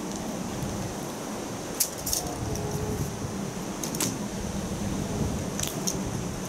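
Several short, light jingling clicks from a cat teaser toy swinging on a string from a rod, over steady wind noise.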